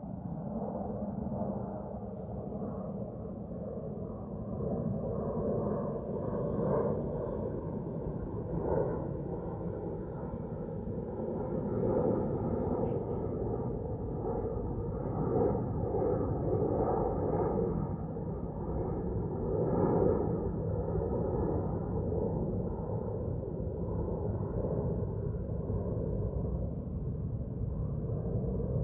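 Outdoor ambience: a steady low rumble that swells and eases slowly, with no distinct events.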